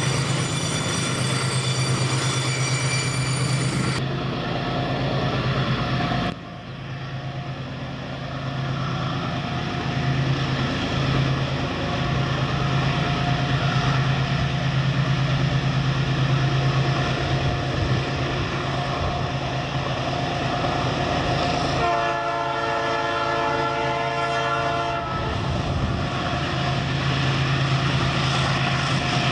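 Diesel-electric freight locomotive running with a steady low engine drone as its train rolls by. About 22 seconds in, the locomotive's multi-tone air horn sounds for about three seconds, and it starts sounding again at the very end.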